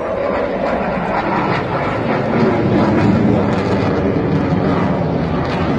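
Delta-wing military jet flying past, its jet engine noise swelling sharply at the start and loudest about three seconds in. The pitch of the noise falls as it passes.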